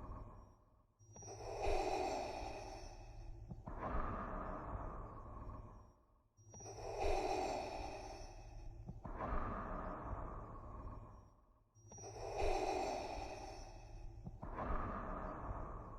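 Darth Vader's respirator breathing sound effect: slow in-and-out breaths through the mask's respirator, about three full breath cycles, each a little over five seconds long, over a steady low hum.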